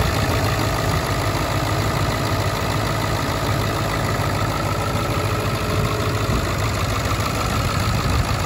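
Ford 7.3L Power Stroke turbo-diesel V8 idling steadily, heard close up in the open engine bay while it warms up after a cold start.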